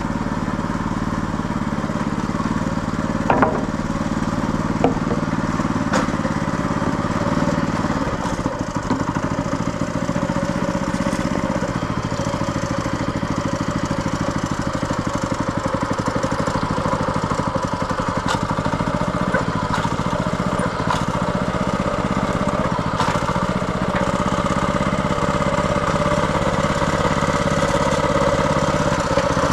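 Small gas engine of a tracked power wheelbarrow running steadily, with a few sharp knocks in the first several seconds.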